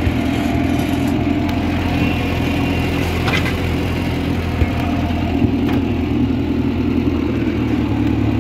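International Harvester B414's 2.3-litre four-cylinder gasoline engine running steadily as the loader tractor digs up grass, its note swelling a little about halfway through. A few light knocks come through in the middle.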